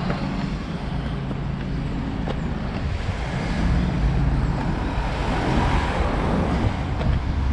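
Road traffic at a junction: van and car engines running as they drive past close by, getting louder from about halfway through as a van pulls past.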